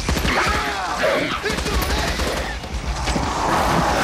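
Sustained rapid automatic fire from Morita assault rifles, many shots overlapping, with high curving cries over the gunfire.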